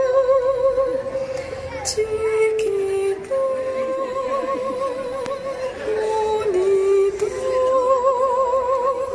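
Music for a dance: a woman singing a slow melody in long held notes with vibrato.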